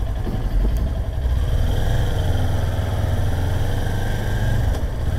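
Kawasaki Ninja 400's parallel-twin engine running as the bike rides off, getting louder and rising in pitch about a second in.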